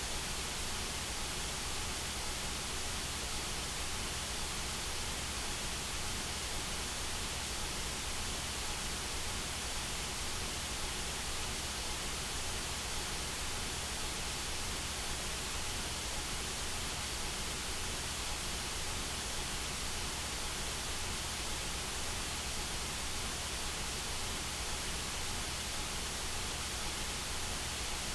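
Steady, unchanging electronically generated white noise: an even hiss across all frequencies, played as a tinnitus-masking sound.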